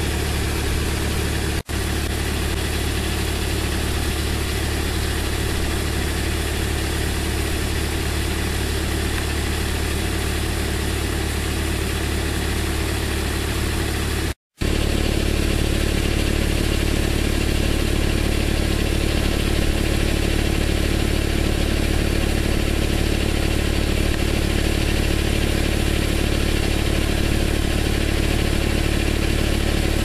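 Irrigation boom spraying water in strong wind: a steady rushing hiss over a continuous low machine hum. The sound cuts out briefly about two seconds in and again halfway through.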